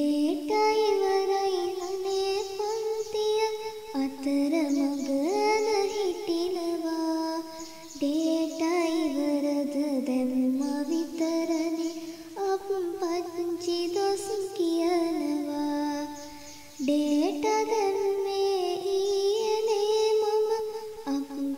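A high voice singing a Sinhala song in phrases of a few seconds each, with gliding, held notes and brief breaths between the phrases.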